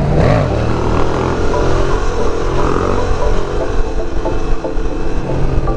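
Motorcycle engines running on the move, the pitch rising and falling with the throttle, with more than one engine note overlapping.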